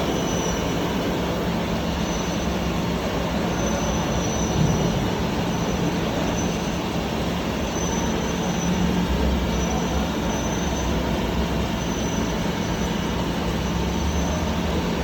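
Steady hum and hiss of laser powder cladding equipment running, with a faint high tone that comes and goes every couple of seconds.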